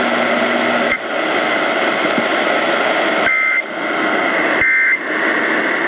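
Steady radio static hiss from a weak, distant signal, broken by short warbling two-tone data bursts about a second apart, the last at the very end: an Emergency Alert System SAME end-of-message code closing a tornado warning.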